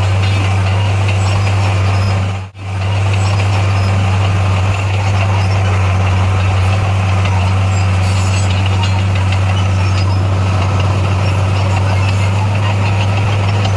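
Bulldozer's diesel engine running steadily with a strong low hum, over a noisy mechanical haze. It drops out briefly about two and a half seconds in.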